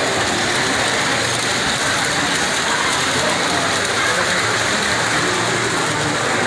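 Steady crowd hubbub: many voices blending into an even wash of noise, with no single voice standing out.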